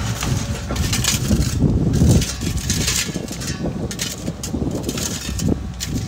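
Komatsu PC200 excavator working: its diesel engine and hydraulics run under load while the steel bucket scrapes and crunches through soil and stones, then lifts the load. The crunching is loudest about a second or two in.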